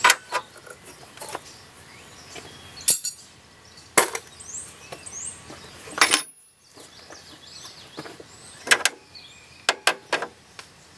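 Hand tools and metal parts being handled during car repair work: several sharp knocks and clinks at irregular intervals.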